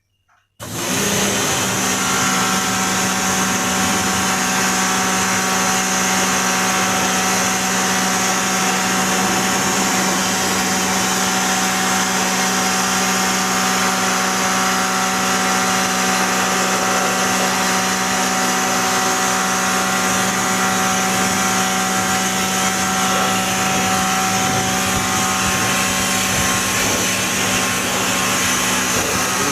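A machine running steadily with a constant hum and hiss, starting abruptly about half a second in.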